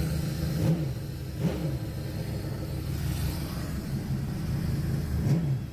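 V8 engine in a Ford Ranger idling steadily, with three quick throttle blips that rise and fall in pitch, about a second apart early on and once more near the end. It is running to burn residue off the engine after being reinstalled.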